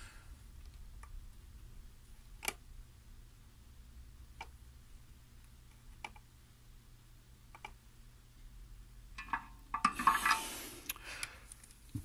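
Quiet workbench handling: a few faint, sharp ticks a second or two apart over a low steady hum, then about a second of scraping, rustling noise near the end as the soldering iron is brought in.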